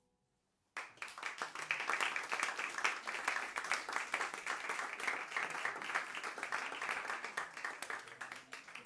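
Applause from a small audience of a few dozen people clapping, starting suddenly just under a second in after the last piano note has died away, and easing slightly near the end.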